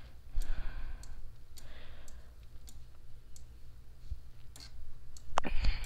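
Computer mouse clicking: about half a dozen single clicks, spaced irregularly, with faint breathing behind them.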